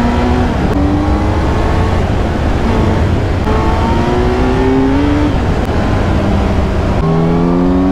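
Kawasaki Z900 inline-four motorcycle engine accelerating hard, its pitch climbing and dropping back again with each of several gear changes. A heavy low rumble of wind noise runs under it.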